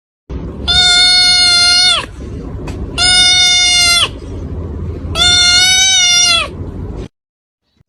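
An animal calling three times, each call held on one steady high pitch for about a second, over a low rumble.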